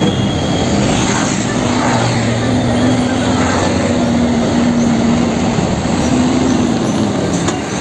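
Isuzu concrete mixer truck's diesel engine running steadily with a low hum as the truck drives past, with road noise.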